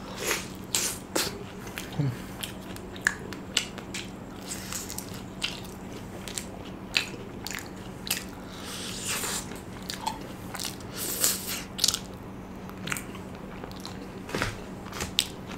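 A person chewing a mozzarella corn dog with a crunchy batter crust, close to the microphone: scattered crisp crunches and wet mouth clicks at an uneven pace.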